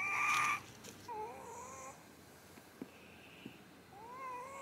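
A cat meowing three times. The first meow, right at the start, rises and is the loudest. A softer, wavering one follows about a second later, and another rising one comes near the end.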